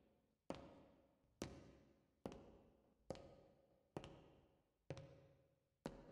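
Faint, slow footsteps, seven sharp steps roughly a second apart, each trailing off in a long echo, over a faint steady hum.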